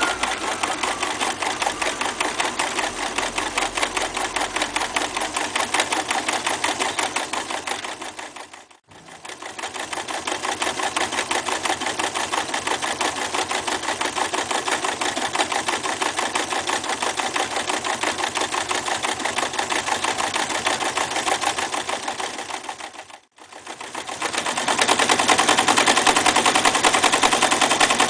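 Reads 300 zigzag sewing machine stitching through a thick leather strap with a fast, even rattle. It stops briefly twice and runs louder in the last few seconds.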